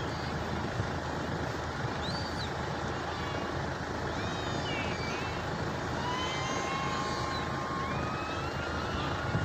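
Steady engine drone with high, thin whistling tones that slide in pitch, one rising slowly near the end.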